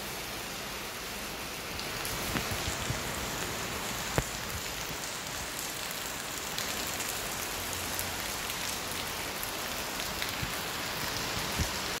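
Steady rain falling on a wet street, with scattered drips; one sharper tap about four seconds in.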